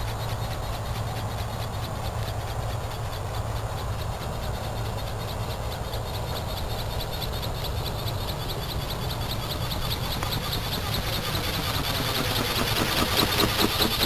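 Electric motor and gear drive of an RC flapping-wing ornithopter, running with a fast rhythmic pulse as the wings beat. It grows louder near the end as the bird flies close. Under it, a steady low rumble of wind on the microphone.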